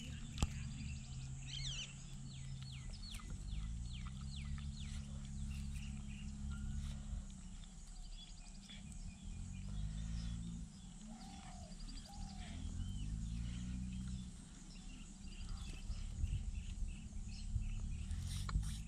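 Birds chirping, with a run of quick falling chirps in the first few seconds and scattered chirps after, over a loud, deep droning rumble. The rumble comes in long stretches of several seconds with slow bends in pitch and breaks off a few times.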